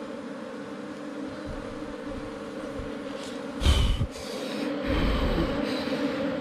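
Honeybees buzzing in a steady hum around their nest in the ground, with a sudden burst of scraping and rustling a little past halfway as gloved hands pull a piece of honeycomb out of the soil.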